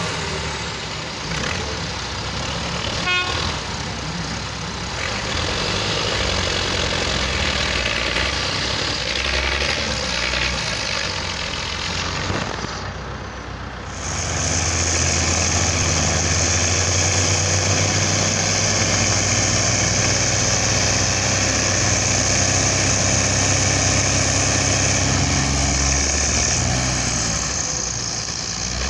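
Diesel engines of farm tractors and a semi-truck running together under load as they pull the truck out of deep beet pulp. About halfway through the engines grow louder and hold steady, with a high whine over them.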